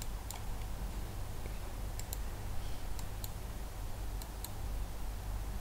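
Computer mouse clicking: several single sharp clicks at uneven intervals over a faint, steady low hum.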